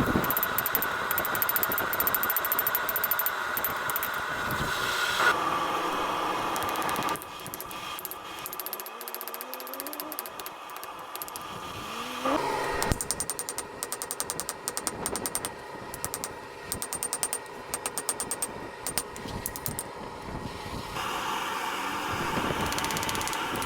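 Metalworking shop sounds in several cut-together segments: machinery running steadily, a rising whine about twelve seconds in, then rapid regular knocking and ticking.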